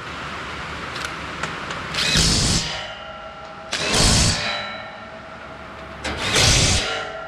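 Cordless impact driver running down bolts into a sheet-metal cover panel in three short bursts, each under a second and about two seconds apart.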